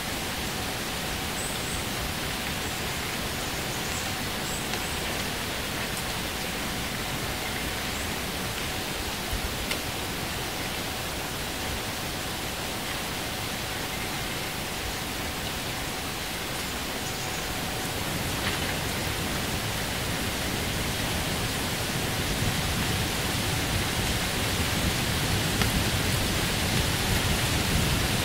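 Steady, even rushing hiss with no clear events in it, growing louder over the last ten seconds.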